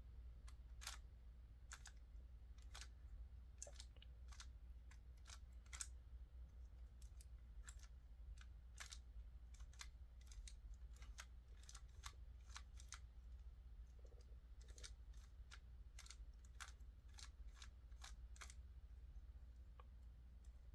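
Faint plastic clicks of a 3x3 Rubik's cube's layers being turned, irregular, about two a second, over a low steady hum.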